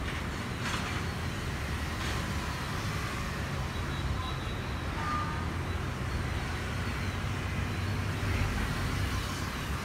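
Steady low background rumble of outdoor ambience, with a couple of faint clicks about a second and two seconds in.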